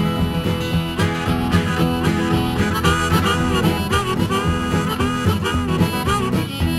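Country boogie song in an instrumental break: a harmonica plays a solo with bending notes over a steady guitar rhythm.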